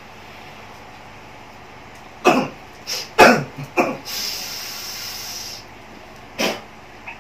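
A man in a possession trance makes harsh, cough-like grunts several times about two to four seconds in. A long hiss of breath follows, then one more grunt near the end.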